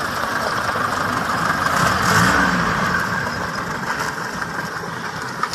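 Toyota FJ40 Land Cruiser running on its swapped-in BJ40 four-cylinder diesel engine as it drives past. The engine gets louder as it passes about two seconds in, then fades as it pulls away.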